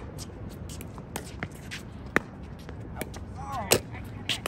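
Pickleball rally: sharp, irregular pops of paddles striking the plastic ball and the ball bouncing on the hard court, loudest about two and three and a half seconds in, with shoes shuffling on the court. A brief voice comes near the end.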